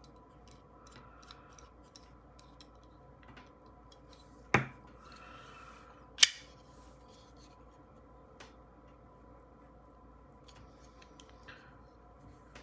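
Varga VBR Small folding knife with Skiff pivot bearings being handled: faint metallic ticks and rubbing, and two sharp metal clicks about a second and a half apart near the middle, as the blade is worked on its pivot.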